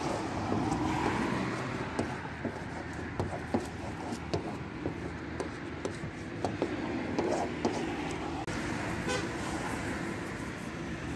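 Street traffic running, with a car horn tooting, and scattered short clicks and taps close by.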